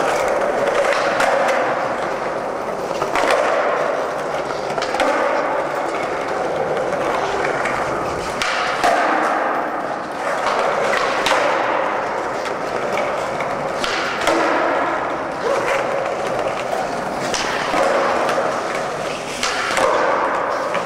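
Skateboard wheels rolling steadily over a smooth, hard tiled floor, with a handful of sharp clacks as the board's tail and wheels strike the floor.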